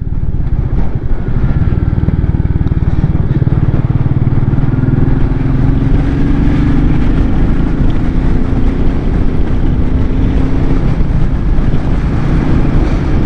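Royal Enfield Meteor 350's single-cylinder engine running on the move, its note rising slowly over several seconds in the middle as the bike picks up speed.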